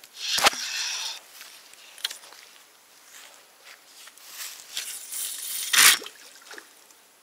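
Rustling and brushing of grass and clothing as the angler moves to pick up his rod, with a loud rustle and knocks about half a second in and another loud rustle ending in a thump near six seconds.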